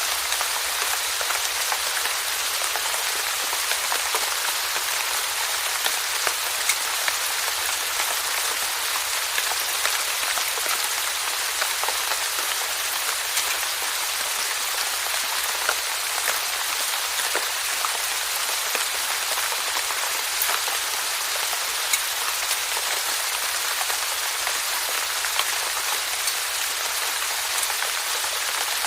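Steady rainfall, an even hiss of rain with scattered individual drops ticking sharply on a hard surface.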